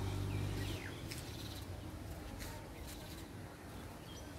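Open-air ambience with short, scattered chirps of small birds. A low steady hum underneath drops away about a second in.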